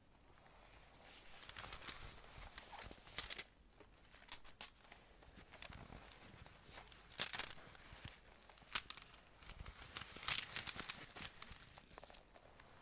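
Faint close-up rustling and crinkling handling noise with a few sharp clicks, about seven and nine seconds in.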